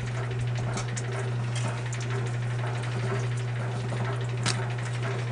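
A 70-plus-year-old Kenmore wringer washing machine running as it agitates a wash load. Its motor gives a steady low hum, with scattered light clicks and rattles.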